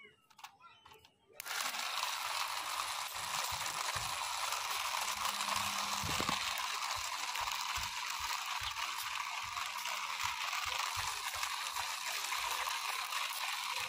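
Small battery-powered DC motor in a homemade toy cart, switched on and driving its wheels over rough concrete: a steady whirring hiss with a faint low hum. It starts suddenly about a second and a half in.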